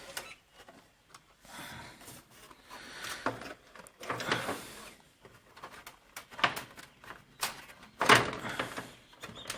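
Scattered clicks, knocks and brief scraping of hands handling the opened TV's plastic parts and wiring, with a louder knock about eight seconds in.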